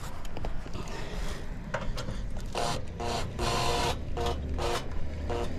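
Cordless drill-driver motor run in short trigger bursts, a steady whir about six times in the last three seconds, after a few light handling clicks.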